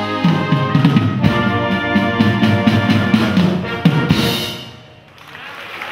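Wind band of brass and woodwinds with a drum kit playing a piece to its final chord, closed with a cymbal crash about four seconds in and dying away. Audience applause starts near the end.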